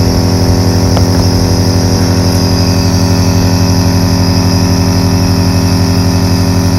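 Electric compressor nebulizer running with a loud, steady buzzing hum and a fine, even pulsing.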